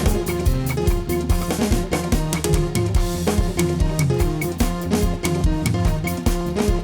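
Live band playing an upbeat dance groove on drum kit, bass and guitar, with a steady fast beat.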